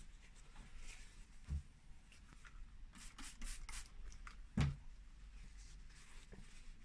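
Paper towel rustling in hand, then four quick spritzes from a trigger spray bottle of degreaser about three seconds in. A low knock comes near the five-second mark.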